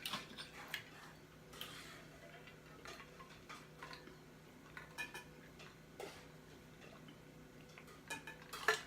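Drinking water from a bottle: faint, scattered swallowing clicks and gulps about every half second to second, with a louder cluster of them near the end.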